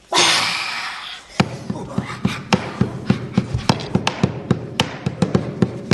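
A loud rushing burst of noise for about a second at the start, then a djembe hand drum starts up about a second and a half in, struck in a quick, uneven rhythm of about three or four beats a second.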